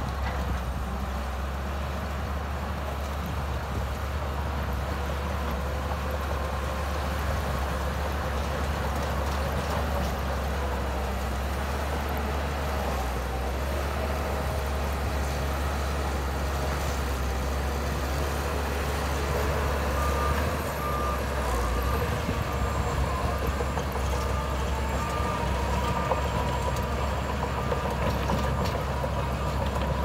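Shantui crawler bulldozer's diesel engine running steadily under load as it pushes sand, with a deep steady drone. From about two-thirds of the way in, its reversing alarm beeps repeatedly as the dozer backs up.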